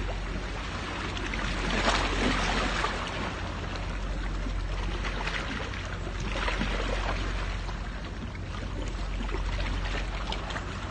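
Sea water washing and splashing against shore rocks, swelling twice, over a steady low rumble.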